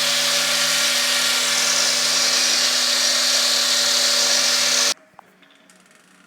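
Homemade copying lathe running: its 125 mm angle grinder with a three-tooth saw disc and its vacuum dust extractor give a loud, steady whine and rush with a constant hum. The machinery is switched off about five seconds in and the noise stops at once.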